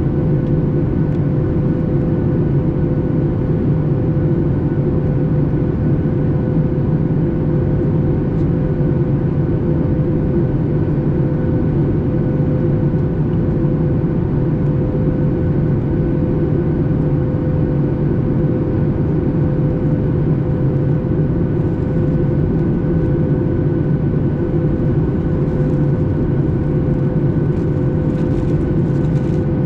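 Steady cabin noise inside a Boeing 737 MAX 8 in flight: a constant low rumble of engines and airflow with a steady hum held at one pitch, unchanging throughout.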